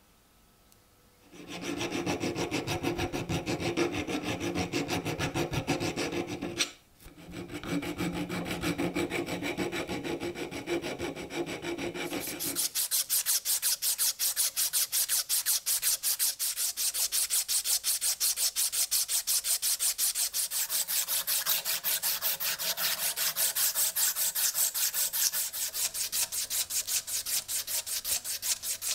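An abrasive strip is pulled rapidly back and forth around the grooves of a polished steel axe handle, making fast, even rubbing strokes, shoe-shine style. The strokes break off briefly about seven seconds in. From about twelve seconds in they turn thinner and more hissing.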